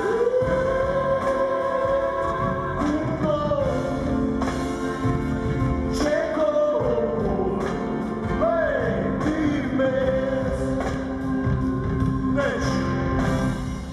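Live pop concert music heard through a large hall's PA: a male singer holds long notes that slide up and down over a band with a steady drum beat.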